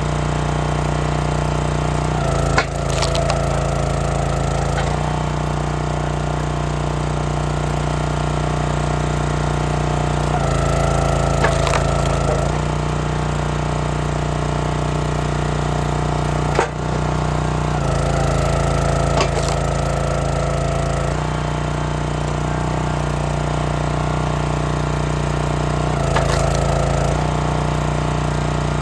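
Small gas engine of a log splitter running steadily. Four times the note shifts for a few seconds as the machine is put under load, and there are a few sharp cracks of cherry wood splitting.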